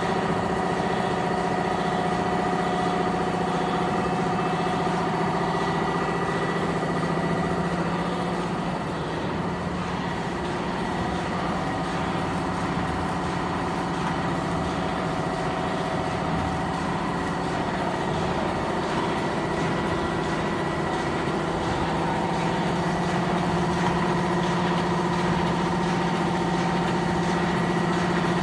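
Automatic platen die-cutting machine for corrugated and duplex board running: a steady mechanical hum with several held tones that weaken and shift slightly for a stretch in the middle.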